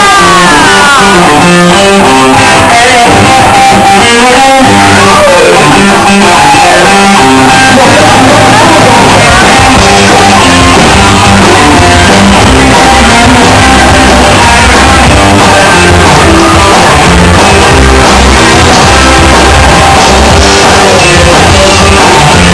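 Loud music playing with guitar and singing, the recording held near its maximum level throughout.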